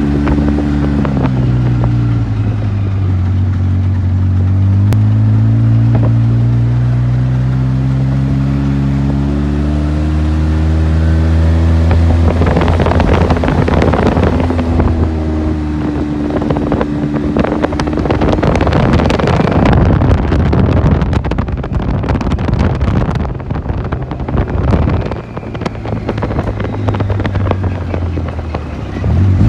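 Side-by-side utility vehicle's engine running as it is driven along a gravel road, its pitch rising and falling slowly with speed. From about halfway on, a rough, rattling noise of tyres on gravel and wind joins it and at times covers it.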